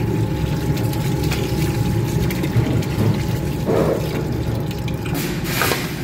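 Tap water running into a stainless steel pot of raw chicken legs, splashing over the meat as it is rinsed, with a short louder rush of water about five seconds in.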